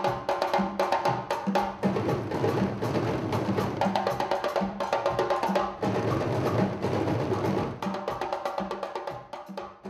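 An ensemble of djembe hand drums playing a fast, dense rhythm over a regular deeper drum beat, fading a little near the end.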